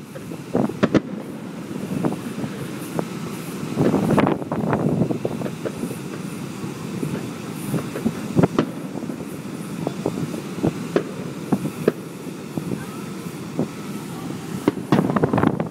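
Aerial fireworks going off: a scatter of sharp bangs, with heavier rumbling booms about four seconds in and again near the end.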